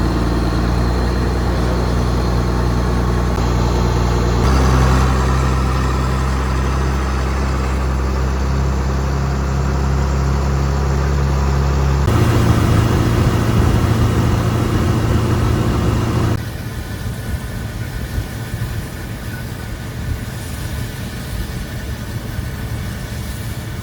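Farm machinery diesel engines running steadily, the engine note changing abruptly about four, twelve and sixteen seconds in, and a thinner, less throbbing engine noise in the last part.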